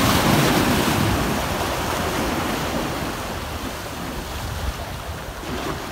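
Sea surf washing against the boulders of a rock jetty, loudest in the first second or so and then easing off.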